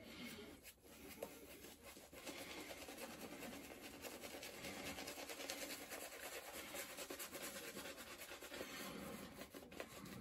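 Badger shaving brush, a Brad Sears two-band fan-tip, swirling soap lather on a bearded face: a faint, rapid, scratchy brushing of the bristles over stubble and lather.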